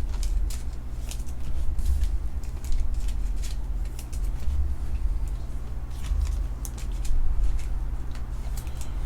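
Trading cards and pack wrappers being handled: a string of small slides, flicks and rustles, over a steady low hum.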